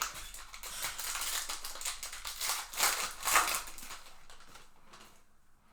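A trading-card pack wrapper being torn open and crinkled by hand, a dense crackle loudest about three seconds in that dies away after about four seconds.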